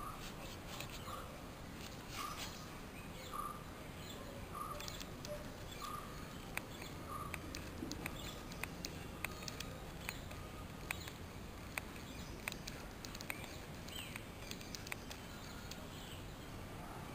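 Outdoor ambience with a bird repeating a short, even note about once a second for the first seven seconds or so. Scattered sharp ticks and clicks follow, with a few brief higher chirps near the end.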